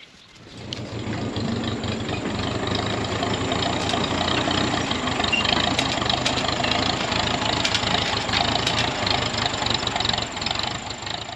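Tractor engine running steadily, coming up over the first second or so and dropping away near the end.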